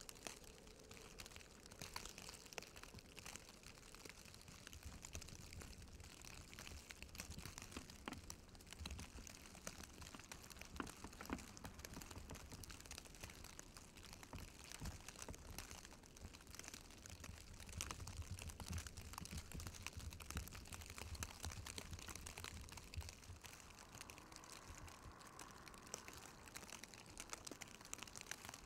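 Faint outdoor ambience in falling snow: wind rumbling on the microphone in gusts under a light, steady crackle.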